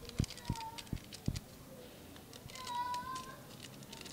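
A few soft knocks in the first second and a half, then a faint, distant voice about halfway through.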